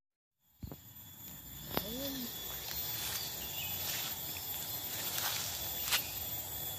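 Insects droning steadily in rural outdoor ambience, with a few faint sharp clicks and a short warbling call about two seconds in. It begins after half a second of silence.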